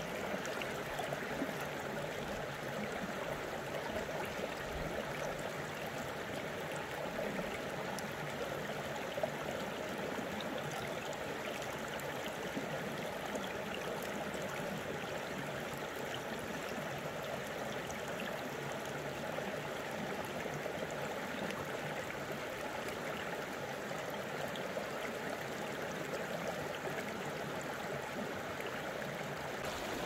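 Rocky valley stream running over stones: a steady, unbroken sound of flowing water.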